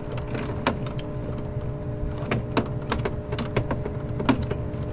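Irregular metallic clicks and taps of a hand wrench and loose metal parts being handled while the fan shroud bolts are loosened, over a steady low hum.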